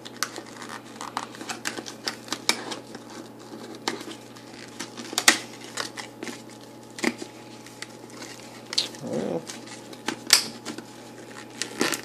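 Plastic blister pack and its cardboard backing being handled and pried apart by hand: scattered crackles and sharp clicks of stiff plastic, with a few louder snaps.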